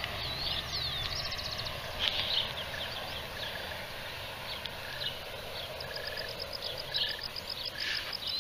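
Several birds calling: quick high chirps, short trills and downward-swooping whistles, with a fast run of repeated high notes in the last two seconds.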